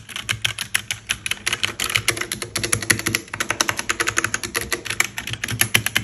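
Fast, continuous typing on a HyperX Alloy Origins 60 mechanical keyboard with HyperX Red linear switches, many keystrokes a second.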